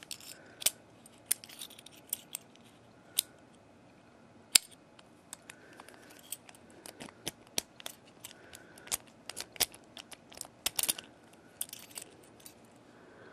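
Irregular sharp metallic clicks from a vintage US Mail registered padlock as its flat steel key is turned and the lock is worked open and shut, each cycle stepping its built-in counter on. The loudest click comes about four and a half seconds in.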